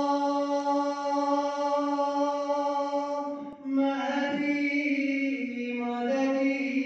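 A man's voice chanting a devotional munajat: one long held note, a short break about three and a half seconds in, then an ornamented phrase that steps down in pitch.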